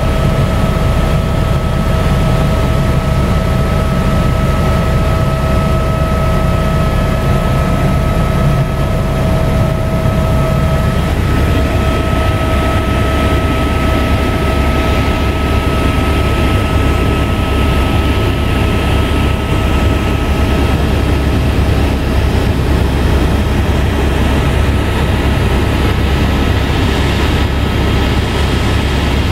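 Helicopter in flight heard from inside the cabin: a loud, steady low drone of engine and rotor with a constant high whine on top, shifting slightly about eleven seconds in.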